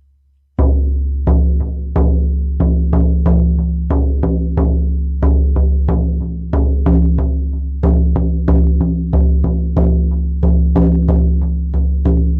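A 20-inch buffalo-skin shamanic frame drum struck steadily with a firm beater, about two beats a second. Each beat is a deep boom that rings on into the next.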